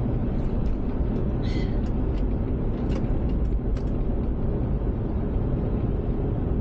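Steady low rumble of engine and tyre noise inside a moving van's cabin, with faint scattered small clicks and ticks.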